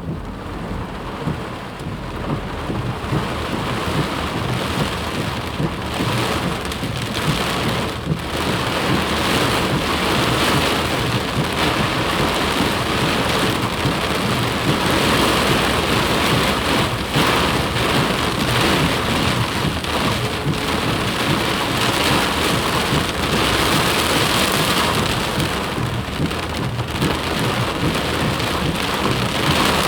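Heavy rain and flash-flood water: a dense, steady hiss of water that builds over the first few seconds and then holds loud.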